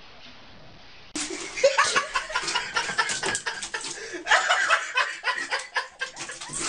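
Faint steady hiss, then from about a second in people laughing, with many sharp clicks and knocks mixed in.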